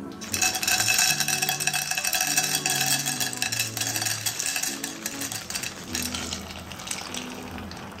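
Dry macaroni shells poured from a plastic bag into an empty non-stick metal pot, a dense rattling patter of hard pieces hitting the pot with a faint metallic ring. The patter starts just after the beginning, is busiest in the first half and thins out toward the end.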